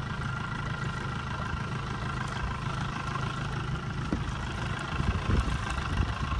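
Bass boat's outboard motor idling steadily at low speed, a constant low hum.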